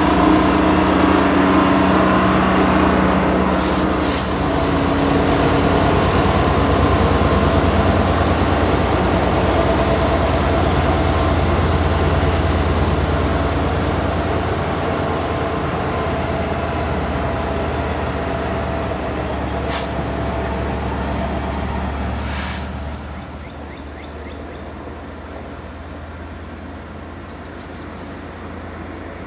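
Canadian Pacific SD30C-ECO diesel locomotive, a 12-cylinder EMD 710, running hard close by as it pushes a Jordan spreader along the track, a steady low drone with a few sharp hisses or knocks. About three-quarters of the way through the sound drops to a quieter, more distant engine drone as the spreader train works toward the listener.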